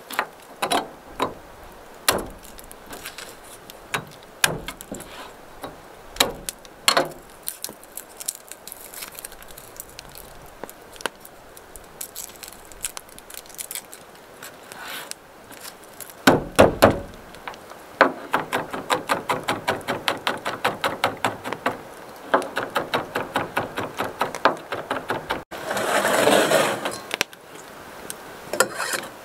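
Kitchen knife on a cutting board while garlic is prepared: a few scattered knocks as cloves are crushed and peeled, a heavier thump, then rapid mincing at about five chops a second. Near the end comes a short scrape as the minced garlic is swept off the board.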